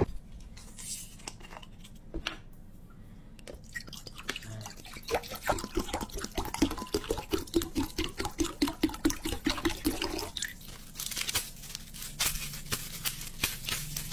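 Coca-Cola pouring from a plastic bottle into a glass bowl, glugging in an even run of about four or five glugs a second for about five seconds. Near the end there is a short rustle.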